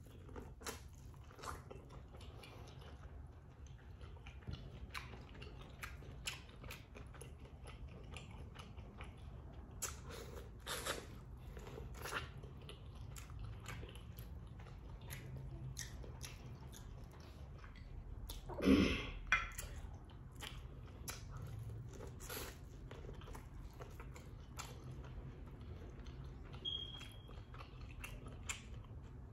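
Close-up chewing and biting of boiled corn on the cob: a steady run of small wet clicks and smacks, with one louder mouth sound about two-thirds of the way through.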